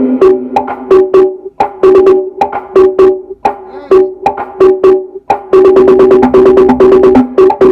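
Dance music played very loud through a car sound system: a fast beat of short pitched percussive hits.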